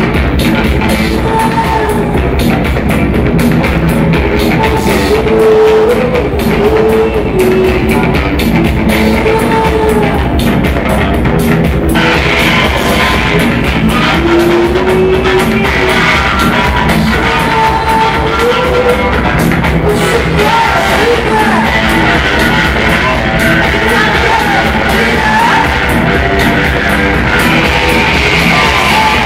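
Live rock band playing: a woman sings lead over electric guitar, bass guitar and drums. About twelve seconds in, the guitar gets brighter and louder.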